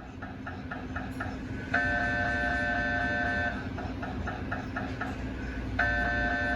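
GE 1.5T MRI scanner running a T2 FLAIR brain sequence, its gradient coils tapping out a rapid pulsing beat of about five a second over a low hum. Twice, about two seconds in and again near the end, the pulsing gives way to a loud, steady, high buzzing tone lasting about two seconds.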